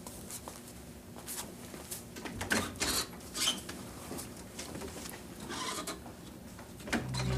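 A few scattered light knocks and handling noises as a person moves about a small room. Music comes in near the end.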